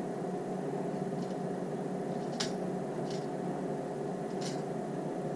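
Steady electric fan hum, with four brief, sharp clicks spread through it.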